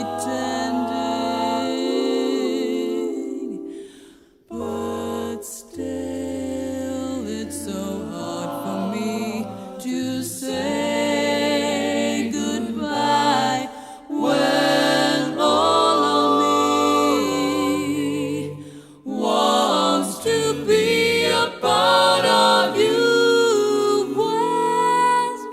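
Background music of sung voices holding long notes with vibrato, pausing briefly twice.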